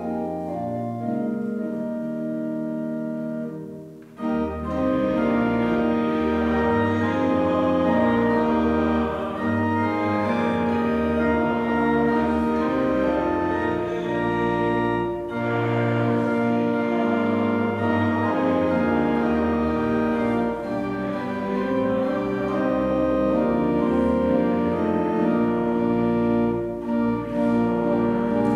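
Church organ playing offertory music: slow, held chords. It dips briefly about four seconds in, then goes on fuller over deep bass notes.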